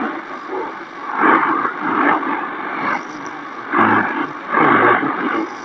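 Shortwave voice broadcast on 13685 kHz, played through the XHDATA D-808 portable's speaker. The voice comes in blurred bursts under steady hiss, picked up by an MLA30+ loop antenna with its cable wrapped around the radio's whip.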